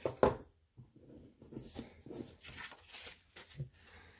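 Cardstock and patterned paper being handled on a craft mat: faint scattered rustling and light taps, with a brief louder rustle right at the start.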